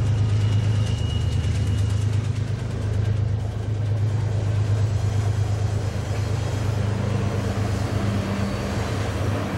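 Heavy double-stack freight train rolling around a tight curve: a steady low diesel drone with a constant rumble of wheels on rail, and a faint high-pitched squeal over the first two seconds.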